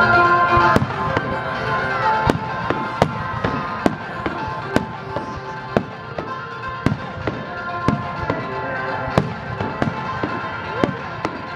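Aerial fireworks shells bursting in a string of sharp bangs, about one or two a second, with music playing along underneath.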